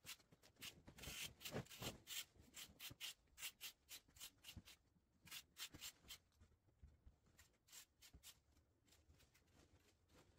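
Faint scraping and rustling of a rake dragged in repeated strokes through cut grass and brush clippings, the strokes coming thick and fast for the first few seconds and sparser afterwards.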